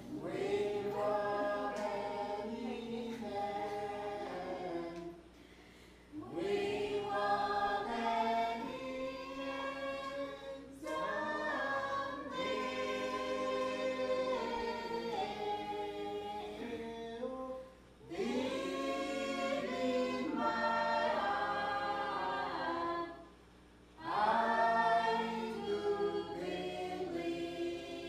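Background music of a choir singing a cappella, several voices in harmony, in long phrases separated by brief pauses.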